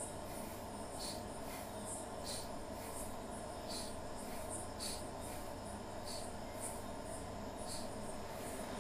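Faint crickets chirping, short high chirps about once a second, over a steady low background hum.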